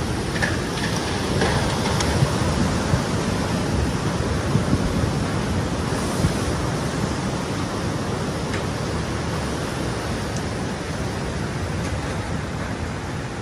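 Tsunami floodwater rushing across the shore as a steady, even rushing noise, with a few faint ticks in the first seconds.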